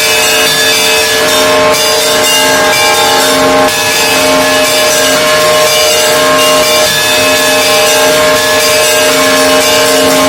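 Russian Orthodox monastery bells ringing together, many bells at once in a loud, continuous peal. Several deep tones hang steadily under a dense clangour of smaller bells.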